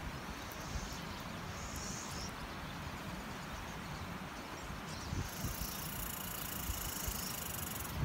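Wind gusting over the microphone as a low, uneven rumble, with a faint high-pitched hiss coming in about five seconds in.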